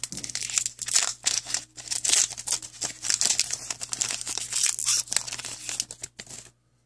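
Foil wrapper of a trading-card pack being torn open and crinkled by hand: a dense, irregular crackling that stops near the end.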